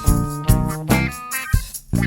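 Background music: upbeat guitar-led funk with drums and a steady beat.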